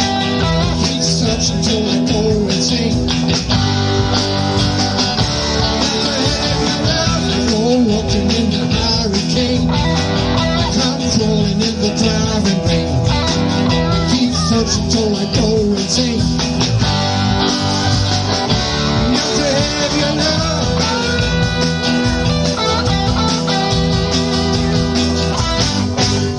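Rock music: an instrumental passage led by guitar over a steady band backing.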